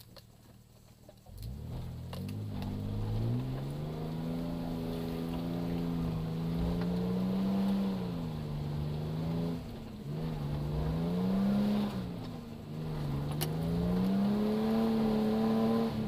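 A 1996 Nissan Pathfinder's engine being driven off-road. The engine comes in about a second in, and its revs rise and fall several times, dipping briefly twice near the end.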